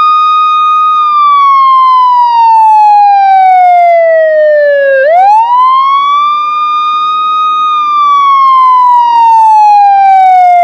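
A 2023 Hess Police Truck toy plays its electronic wailing siren sound effect. The siren slowly falls in pitch, jumps back up about five seconds in, then falls slowly again, two long wail cycles in all.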